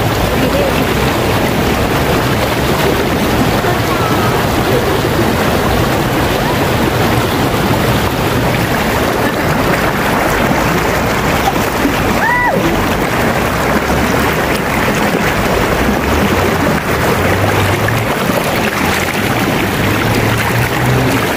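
Shallow river rapids, fast water rushing and churning over rocks in a loud, steady rush.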